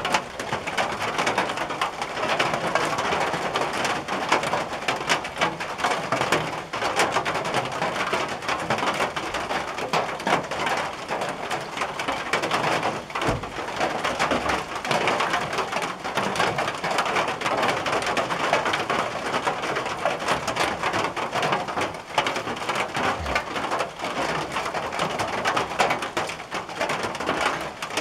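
Rain falling steadily on a tin roof: a dense, even patter of drops.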